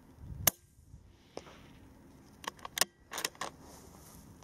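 A Bergara B14R .22LR rifle fires a single shot, a sharp crack about half a second in, followed by a fainter knock about a second later. Then comes a quick run of metallic clicks as the bolt is worked to eject and reload.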